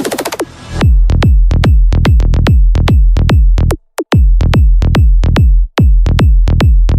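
Psy-trance electronic music: the full mix drops away just after the start, leaving a steady, evenly repeating kick drum and bass pattern. The pattern cuts out briefly twice, about four seconds in and just before six seconds.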